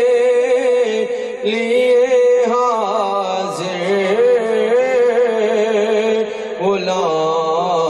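Man's voice singing a naat (Urdu devotional poem to the Prophet) through a microphone, with no accompaniment. It draws out long held notes and ornamented melodic turns with no clear break into words.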